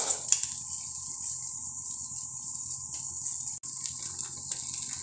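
Dosa frying on a hot tawa, a steady sizzling hiss, with a couple of sharp clicks, one just after the start and one a little past the middle.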